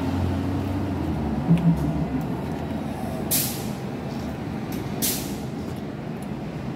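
City street traffic running with a steady low rumble, with two short, sharp hisses about three and five seconds in.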